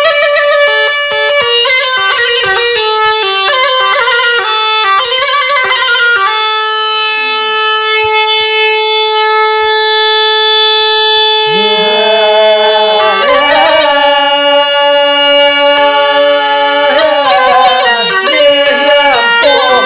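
Laz tulum, the Black Sea bagpipe with a skin bag and double chanter and no drone, playing a fast ornamented folk melody. Partway through it holds one long note, then picks the tune back up with a lower second tone sounding alongside it.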